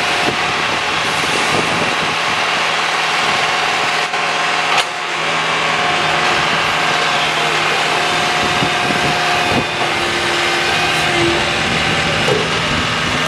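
Backhoe engine running steadily, with a single sharp clank about five seconds in.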